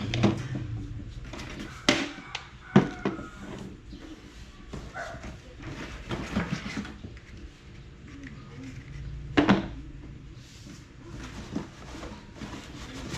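Scattered knocks, clicks and rustling of objects being handled, with sharp knocks about two and three seconds in and a loud one about nine and a half seconds in. A steady low hum cuts off right at the start.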